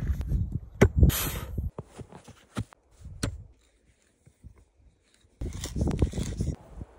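Spiral wood auger bit turned by hand into a log, the wood crunching and creaking as the bit cuts and lifts shavings. It comes in two bursts, one at the start and one a little before the end, with scattered clicks and a quiet gap between.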